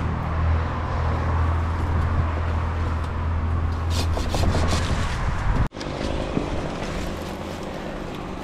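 A steady low engine drone, with branches and leaves rubbing and scraping as a climber moves through a tree. About two-thirds of the way through, the sound drops out for an instant, and the drone is fainter afterwards.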